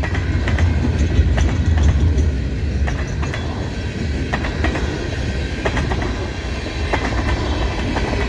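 Freight train rolling past: a steady low rumble from the cars, with the steel wheels clicking and clacking irregularly over the rail joints.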